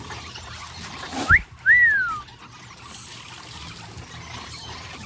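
Two short clear whistled notes about a second in: a quick upward one with a knock under it, then a louder one that rises briefly and slides down.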